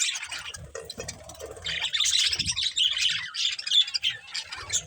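Budgerigars chirping and chattering in quick, high warbles, thinner for about a second near the start and dense again from about two seconds in.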